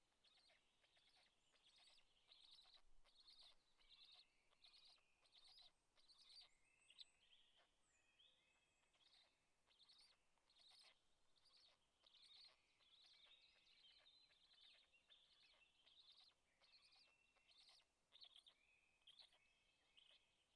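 Faint birdsong: small birds giving short high chirps and trills.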